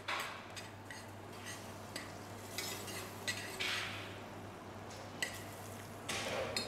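Metal spoon stirring and scraping in a stainless-steel saucepan as margarine melts in it, a few soft scrapes.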